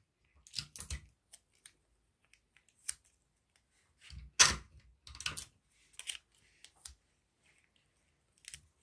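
Paper and sticky tape being handled and pressed down, making scattered short crinkles and taps; the loudest comes about four and a half seconds in.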